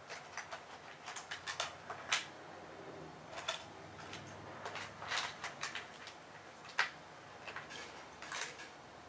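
Scattered light clicks, clinks and rustles of small Keihin carburetor parts and hand tools being handled and moved about on the workbench, with two sharper clicks, one about two seconds in and one near seven seconds.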